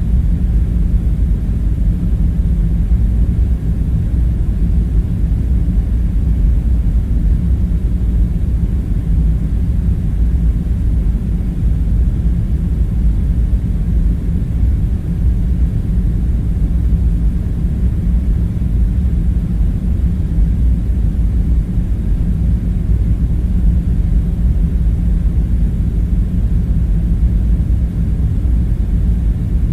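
Steady low rumbling drone with no breaks: the background hum of the bunker ambience.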